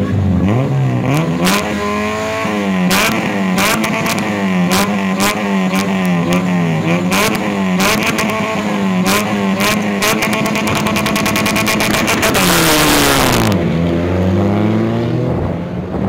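Supercharged Honda Civic Si engine revving hard at the start line, its pitch swinging up and down about twice a second with sharp cracks among the revs. About twelve seconds in a burst of rushing noise marks the launch, and the note then falls and climbs again through the gear changes as the car pulls away.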